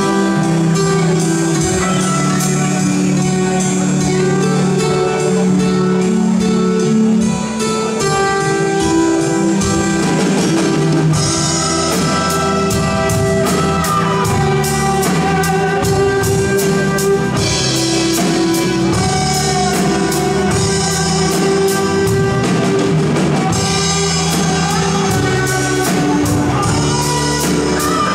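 Live band music: held guitar chords carry the tune, and a drum kit comes in about eleven seconds in with a steady beat and cymbals.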